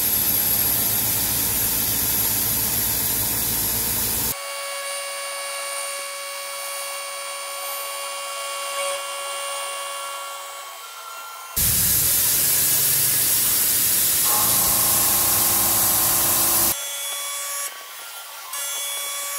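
Three-axis CNC machining center milling steel. A dense hiss of cutting and spray alternates with a steady high whine of several held tones, and the sound switches abruptly between the two a few times.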